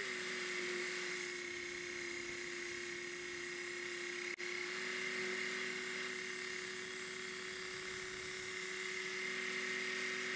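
Work Sharp Ken Onion Elite belt sharpener running steadily, its electric motor giving a constant hum over the hiss of the abrasive belt as a kitchen knife's bevel is ground.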